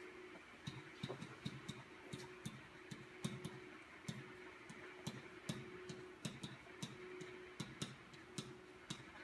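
Pen or stylus tapping and ticking against an interactive whiteboard's surface as words are handwritten. It makes a faint, irregular series of sharp clicks, a few a second.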